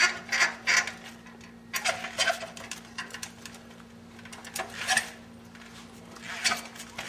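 Trials bicycle hopping and balancing on a boulder: several bursts of sharp clicks and knocks from the bike and its tyres on the rock, a cluster near the start and others at about two, five and six and a half seconds.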